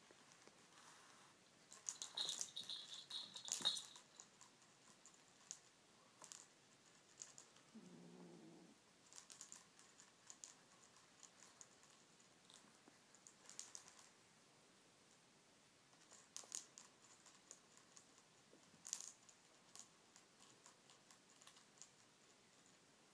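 Kitten playing with a plastic ball-track cat toy with a spring-mounted wand: scattered faint plastic clicks and rattles, with a louder burst of rattling about two seconds in. A short low kitten growl comes about eight seconds in.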